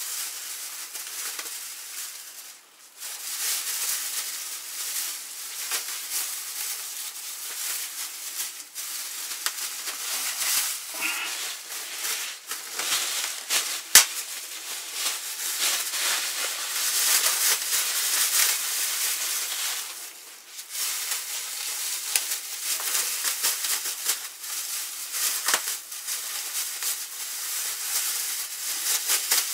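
Clear plastic bags crinkling and rustling as pieces of spiced pork fat are packed into them by hand, with one sharp click about halfway through.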